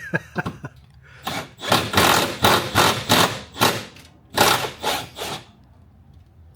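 Boxed packaging being torn open by hand: a quick run of short ripping, rustling noises, stopping about a second before the end.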